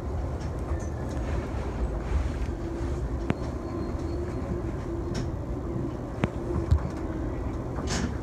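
Yamanote Line commuter train pulling out of a station, heard from inside the front car: a steady low running rumble with a faint hum, and a few sharp clicks from the wheels.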